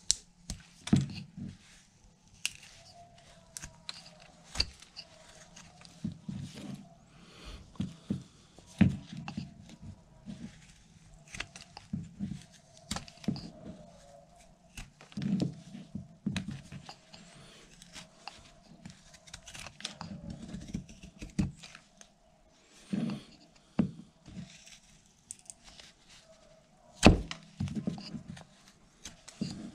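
Carving knife slicing into a basswood block, short irregular cuts with sharp clicks as chips come off; the sharpest click comes near the end.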